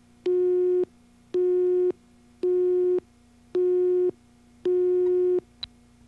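Videotape slate beep tone: five steady, pitched beeps about once a second, the last a little longer, over a faint steady hum, then a short click near the end.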